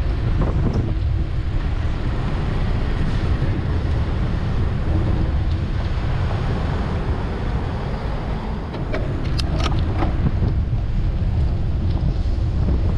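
Wind buffeting the microphone of a camera on a moving bicycle, a steady low rumble, over the noise of city traffic. A few short, sharp high sounds come about nine to ten seconds in.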